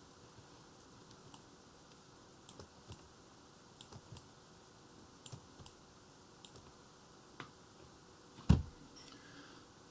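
Sparse sharp clicks from someone operating a computer, many in close pairs. About eight and a half seconds in there is one much louder, low thump.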